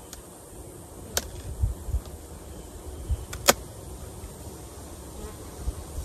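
Honeybees buzzing around an open hive, with two sharp clicks, about a second in and about three and a half seconds in, the second one louder.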